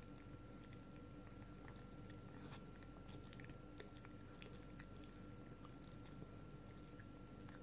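Small dog chewing sticky toffee, faint irregular clicks of its jaws and teeth over a steady low hum.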